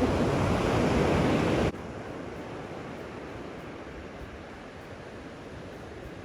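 Ocean surf breaking on the beach, a steady rushing noise that drops suddenly to a lower level a little under two seconds in.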